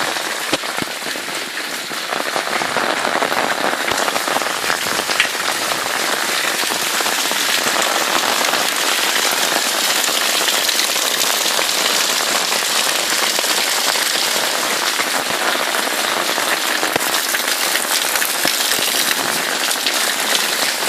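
Heavy rain pouring down, a steady dense hiss of drops hitting the ground, getting a little louder after about two seconds.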